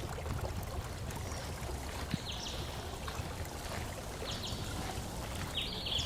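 Running water trickling steadily, with a few short bird chirps about two, four and six seconds in.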